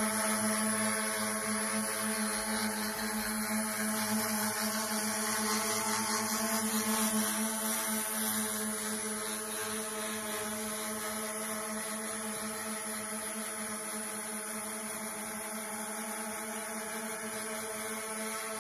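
Foldable brushless-motor quadcopter drone in flight, its four propellers giving a steady buzzing hum with a clear pitch. It gets slightly quieter in the second half as the drone moves around.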